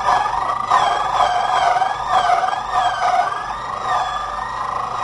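Emergency vehicle siren wailing, its pitch swinging up and down over and over, with more than one wavering tone overlapping.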